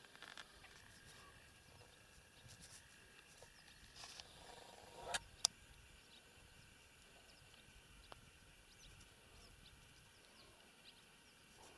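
Near silence: quiet outdoor air with faint, scattered chirps and two brief faint clicks about five seconds in.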